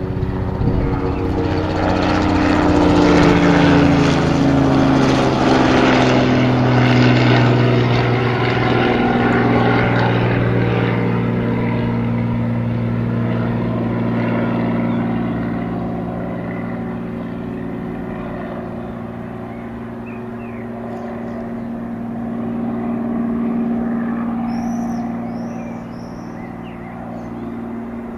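An engine passing by. Its pitch falls over several seconds as it grows loudest, then holds as a steady hum.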